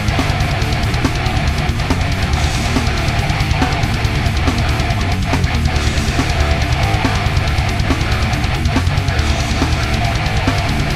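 Brutal death metal recording: heavily distorted guitars and bass over fast, dense drumming, playing at a loud, unbroken level.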